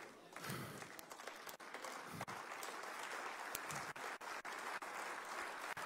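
A congregation applauding in a large hall: scattered claps that fill out into steady applause about two seconds in.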